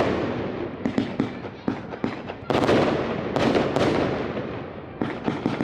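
Fireworks going off: a series of loud bangs, each trailing off in crackle, with sharper smaller pops in between. A big bang opens it, more come about two and a half and three and a half seconds in, and a cluster of quicker pops falls near the end.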